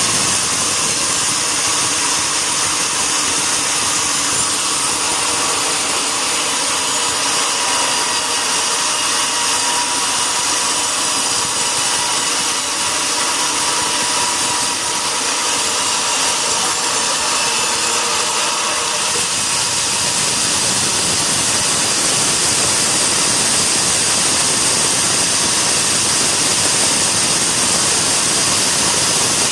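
Sawmill saw machinery running steadily: a loud hiss with a steady whine. A low rumble fills in about two-thirds of the way through.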